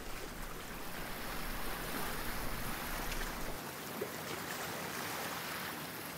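Ocean surf washing onto a beach: an even hiss of breaking waves.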